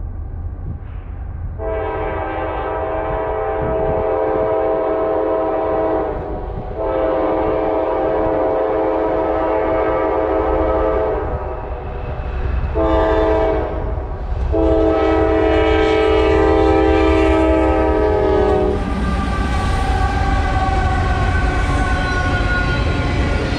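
Norfolk Southern freight locomotive air horn sounding the grade-crossing signal, long, long, short, long, over the low rumble of the approaching train. About 19 seconds in the horn stops and the lead locomotives pass close by, a loud rumble with slowly falling tones.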